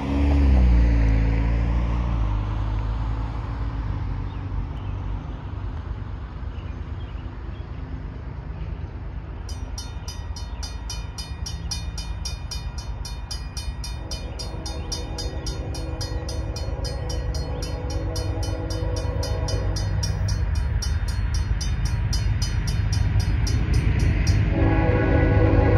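Railroad crossing's mechanical bell starts ringing about a third of the way in, with fast, even strokes as the crossing activates, over a low rumble. An approaching freight train's horn sounds faintly through the middle, then loudly near the end.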